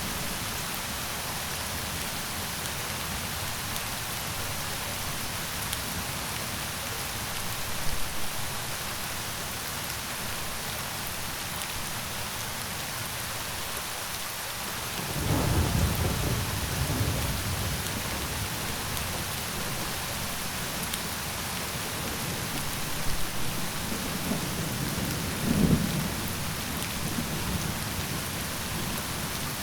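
Steady rain falling, with low rumbles of thunder rolling in about halfway through and again near the end.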